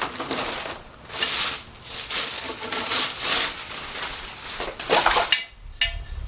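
Packing material rustling and crunching in irregular bursts as grill parts are unwrapped and handled, with a sharper knock a little after five seconds.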